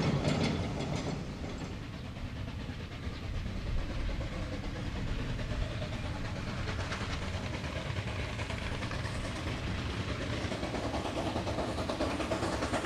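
Narrow-gauge C2 class steam locomotive working slowly along light track, with steam escaping at the cylinders and running gear noise; it grows louder near the end as it comes closer.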